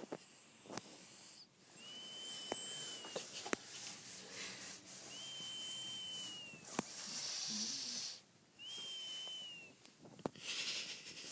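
Snoring in which three breaths each end in a thin, high, squeaky whistle lasting about a second, about three seconds apart, like a mouse's squeak, with soft breathy hiss between.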